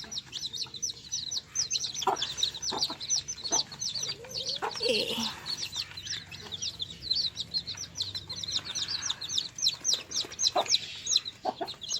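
Young desi chicks peeping constantly, a rapid stream of short, high, falling peeps, with a few knocks and one lower chicken call about five seconds in.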